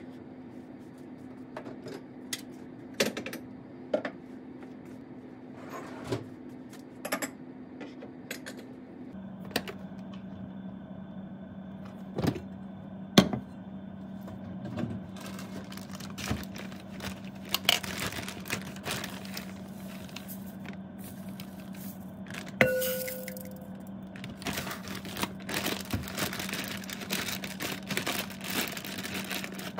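Scattered clicks and knocks over a steady hum whose pitch drops slightly about nine seconds in. A short beep sounds near the three-quarter mark, and the clicking grows busier near the end.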